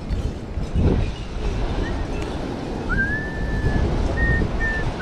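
Wind buffeting the microphone, and from about three seconds in a person whistling a tune in held notes with small slides between them.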